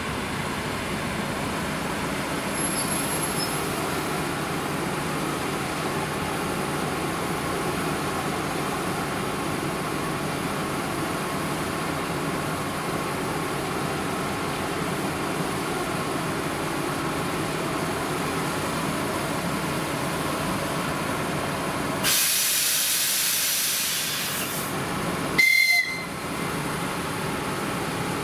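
Suburban electric multiple unit standing at a platform, its onboard equipment humming steadily. About two-thirds of the way through, a sudden loud hiss of released compressed air fades over about two seconds. Shortly after comes one short, high whistle blast, the train's signal before departing.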